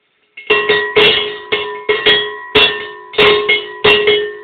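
A 1916 cowbell made for a lead cow, rung hard so that its hanging clapper strikes the bell about a dozen times in an uneven rhythm, two or three strikes a second. Each strike rings on in a clear, pitched bell tone.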